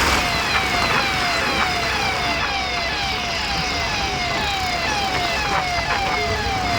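Police-style electronic siren fitted to an auto-rickshaw, sounding a rapid pattern of falling sweeps about twice a second over traffic noise.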